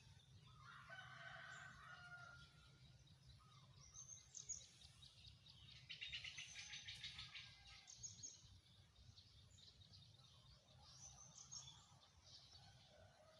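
Faint birdsong with a rooster crowing about a second in. A rapid high trilling call comes around six to seven seconds in, over a low steady hum.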